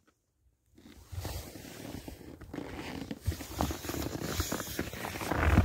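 Snowboard sliding and scraping over snow, mixed with rustling and knocking from a handheld phone's microphone. It starts about a second in and grows louder toward the end.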